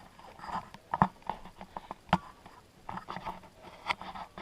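A few scattered sharp knocks and clicks at irregular intervals in a small room, the loudest about one, two and four seconds in.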